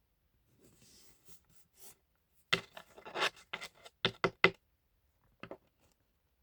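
Pokémon trading cards being handled and slid against one another. There is faint rustling at first, then a quick run of short, sharp scraping and flicking sounds about halfway through, and one more brief flick near the end.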